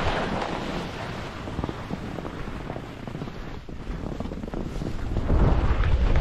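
Wind rushing over the microphone of a skier's helmet-mounted action camera on a downhill run, with skis sliding and scraping over snow. The rush eases off in the middle and builds again near the end.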